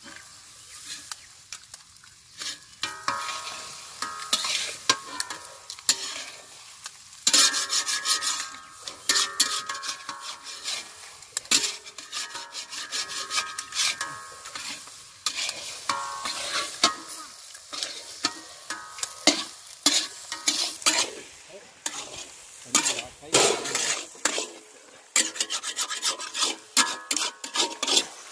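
Eggs and cabbage sizzling in a large iron kadai while a long metal spatula scrapes and stirs around the pan in rapid, irregular strokes, the iron ringing faintly at times.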